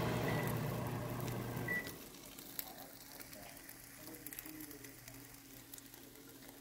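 Slices of egg-batter-soaked French toast sizzling in a nonstick frying pan. A low hum runs under the first two seconds, then the sizzle drops to a quieter level with faint crackles.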